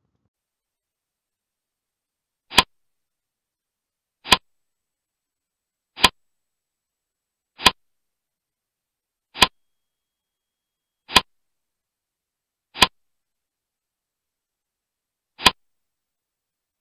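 Eight short, sharp clicks, one roughly every 1.7 seconds with a longer pause before the last, in otherwise dead silence. Each is the click of a tick mark being placed in a box of an on-screen interactive textbook exercise.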